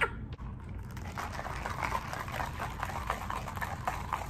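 Ice rattling in a clear plastic cup of iced shaken espresso as the cup is shaken: a quick, irregular clatter that starts about a second in.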